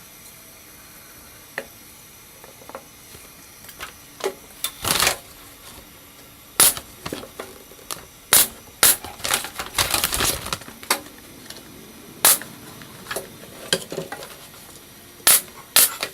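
Irregular clicks, knocks and short scraping bursts of wooden frame pieces and hand tools being handled and set down on a bench, sparse at first and busiest in the middle.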